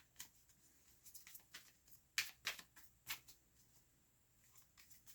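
Tarot cards being handled: a few scattered soft taps and flicks of card stock, the clearest a couple of seconds in and again about a second later, in an otherwise very quiet room.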